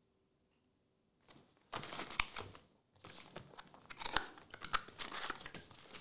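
Crinkling and tearing of packaging as a Marvel Annual trading-card box is opened and its foil packs pulled out. It starts about a second and a half in as irregular rustling with sharp crackles, with a brief pause near the middle.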